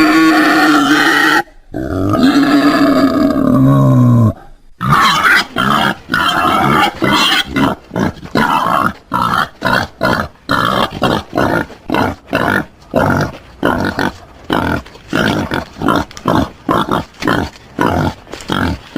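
Wild boar vocalising: two long, drawn-out pitched calls, the second dropping in pitch at its end, then a long run of short, rapid grunts, about two to three a second.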